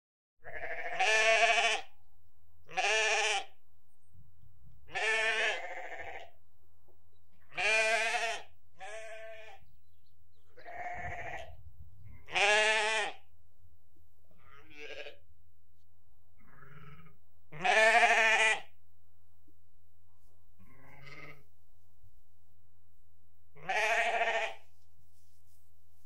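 Rams bleating: about a dozen separate wavering bleats, each under a second long and spaced a couple of seconds apart, some much louder than others, over a faint steady low hum.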